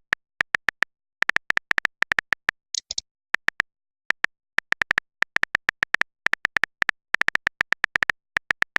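Phone keyboard typing clicks: short, identical taps coming irregularly a few times a second, with two brief hissy ticks about three seconds in.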